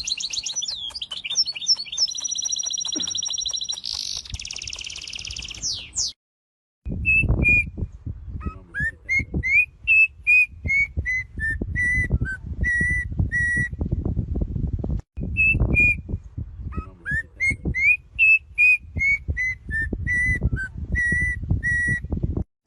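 A bird whistling: first a high, sustained trilling song, then, after a short break, a tune of clear whistled notes that rise and fall, heard twice over a clatter of knocks and rustling.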